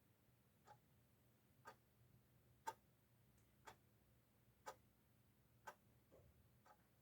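Faint clock ticking steadily, one tick a second.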